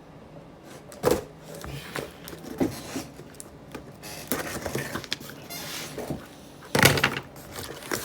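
A shipping package being opened by hand and its contents handled: a few knocks, then rustling and crackling of packaging, loudest near the end.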